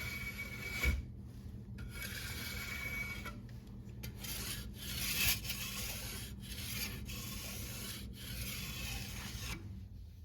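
Wood being abraded by hand, sanded or rasped in a string of back-and-forth strokes about a second long each, stopping shortly before the end.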